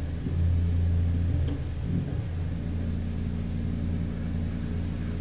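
Compton polyphone, the organ's pedal bass unit, sounding a low held note up close: a deep, steady rumbling tone that swells slightly in the first couple of seconds and then holds.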